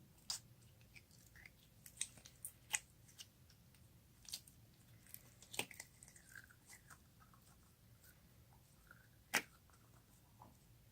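Slime being handled and squished by hand, giving irregular sticky clicks and pops, a few of them sharper and louder than the rest.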